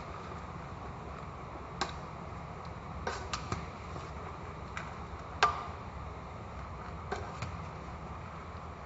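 Metal ladle clinking against the side of a stainless steel pot while stirring a boiling coconut-milk curry: about eight short sharp clinks at uneven intervals, the loudest about five and a half seconds in, over a steady low rush.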